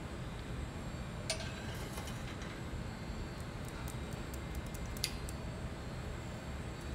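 Steady low rumble of the glassblowing studio, with a light knock about a second in as the thin blown pint glass drops off its punty onto the steel bench, a sign of a punty that went too cold. Faint ticks follow, and there is a sharper click later.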